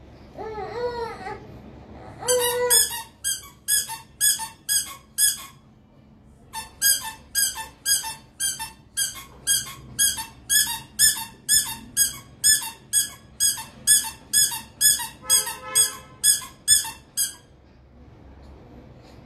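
A rapid series of short high-pitched squeaks, about two and a half a second: a short run, a pause of about a second, then a longer run that stops shortly before the end.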